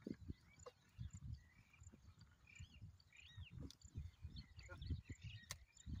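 Faint outdoor field ambience: soft, irregular low thuds with a few short bird chirps about halfway through.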